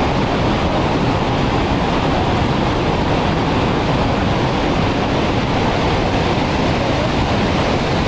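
Steady, unbroken roar of the Horseshoe Falls at Niagara, its water plunging into the churning basin below.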